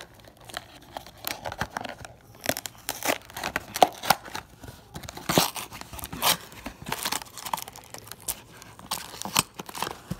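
Glued-shut cardboard box of trading cards being torn open by hand: a string of short, irregular ripping and crackling sounds as the paperboard flaps tear.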